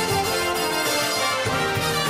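Instrumental band music: held chords over regular low drum hits.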